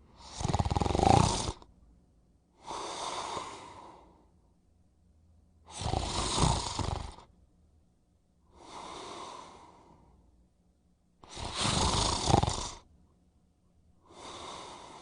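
A person snoring: three loud, rattling snores, each followed by a quieter breath, one breathing cycle about every five to six seconds.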